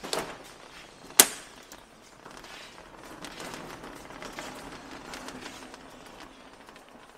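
A sharp knock, then a louder, very short bang about a second in, followed by a few seconds of fast rattling clicks from hands-on garage work under the car.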